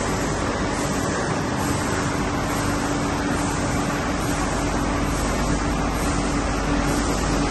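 Nilpeter FB 3300 servo-driven UV flexo label press running, its UV curing system switched on: a steady even rushing machine noise with one constant low hum.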